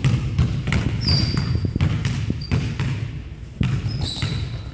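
Basketball being dribbled hard on a hardwood gym floor in a run of quick bounces, with brief high sneaker squeaks about a second in and again near the end.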